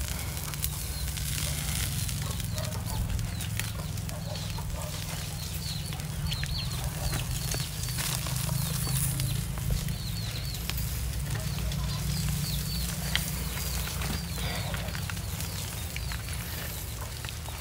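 Birds chirping over and over in short, falling high-pitched calls, with a few faint crackles from the charcoal fire and a steady low hum underneath.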